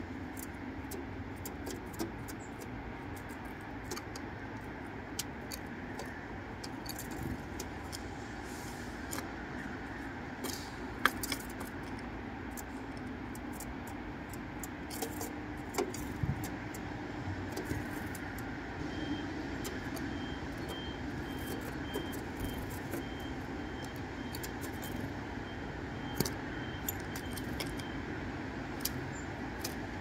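Great tit on a wooden feeder tray of seeds and nuts: scattered sharp taps and clicks of its beak and feet on the wood and seed shells, over a steady background hum. Past the middle a faint high note repeats evenly for several seconds.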